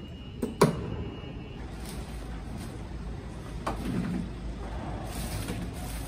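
Low steady rumble of a car, with two sharp clunks about half a second in and another a little past three and a half seconds.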